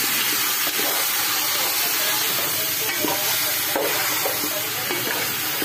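Chicken pieces sizzling as they sauté in an aluminium pot, with a wooden spatula stirring them and scraping and knocking against the pot in short strokes.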